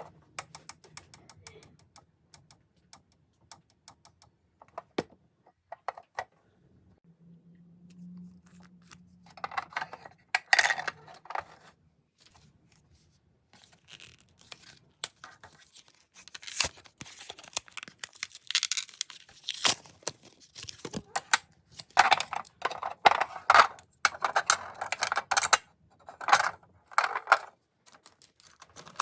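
Packaging being torn and handled by hand: irregular rips, rustles and small clicks, getting busier in the second half.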